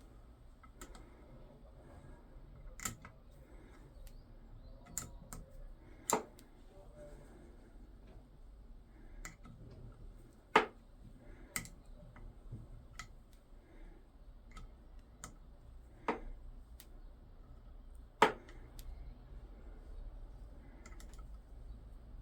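Sharp clicks and taps of a spanner and small metal parts being handled while bleed nipples are fitted to a brake caliper, about a dozen clicks spaced irregularly over a low background.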